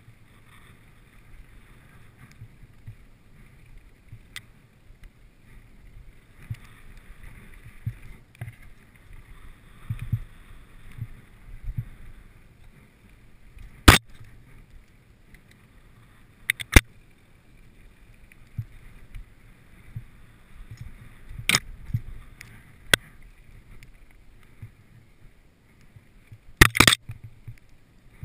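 Mountain bike riding fast down dirt singletrack: tyres rumbling on the trail and the bike rattling over bumps. Sharp knocks ring out a few times, about 14, 17, 22 and 27 seconds in, from the bike or its camera mount jolting over rough ground.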